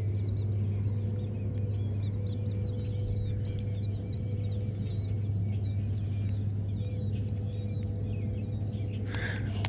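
Small birds singing in rapid, repeated high chirps over a steady low rumble. Near the end, a clatter of footsteps on loose river stones begins.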